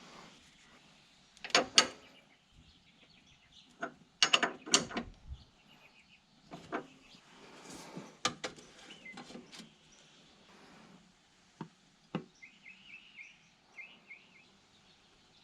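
Scattered clanks and clicks of things being handled, loudest a few seconds in, with a bird chirping briefly near the end.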